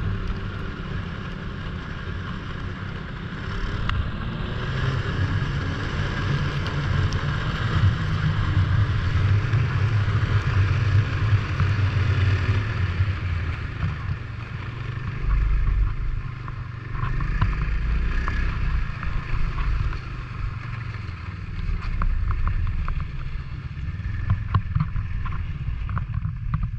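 Snowmobile engine running steadily as the sled rides through snow, with wind buffeting the microphone.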